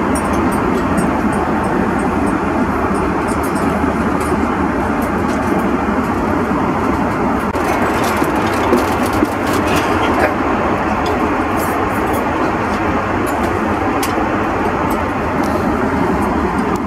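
Steady roar of an Airbus A330 cabin in cruise, engine and airflow noise, with occasional light clinks of cutlery and crockery.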